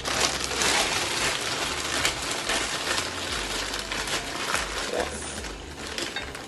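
Plastic zip-top freezer bag crinkling as it is squeezed and shaken, with frozen pumpkin pieces tumbling out into a pot; a dense crackle full of small clicks, louder in the first few seconds.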